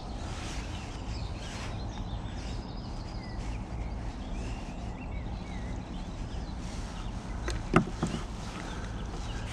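Outdoor lakeside ambience: a steady low rumble with scattered short bird chirps, and one sharp knock close to the mic near the end.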